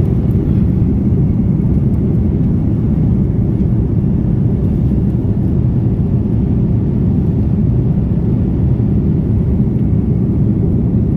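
Steady low drone inside a jet airliner's cabin in flight: engine and airflow noise heard from a window seat.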